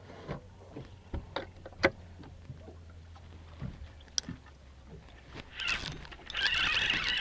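Knocks and clatter on a fishing boat over a steady low hum. About six seconds in, a fishing reel starts up with a loud, dense mechanical rattle as a fish is hooked.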